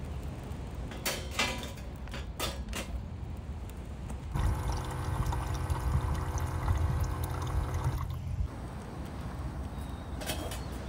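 A small electric water-dispenser pump runs steadily for about four seconds, pouring a stream of water into an aluminium camping kettle. A few clicks and knocks come before it, and near the end there is a short metal clatter as the kettle is set on a steel wood-stove top.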